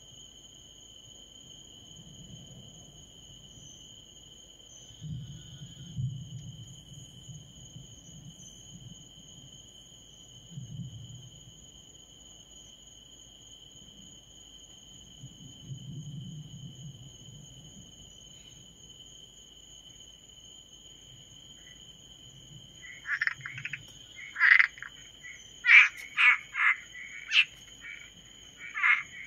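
Night insects trilling steadily at a high pitch, with a few faint low rumbles in the first part. Near the end, frogs start calling in a run of short, loud, repeated croaks.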